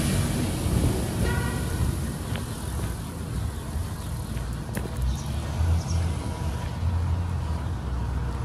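Road traffic on a nearby street, a steady low rumble of passing cars. A brief high pitched tone comes just over a second in.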